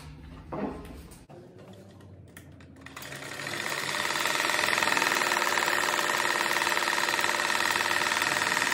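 Electric sewing machine stitching a seam. It starts about three seconds in, builds quickly and runs steadily at speed. Before it starts there is a short click and a knock.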